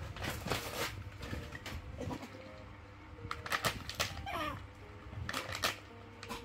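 A snack packet rustling and crinkling in short bursts, several times, as a baby monkey handles it and pulls at it. A short falling squeak-like call comes about four seconds in.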